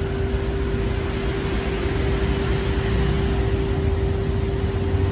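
Steady background noise with a constant mid-pitched hum and a low rumble underneath.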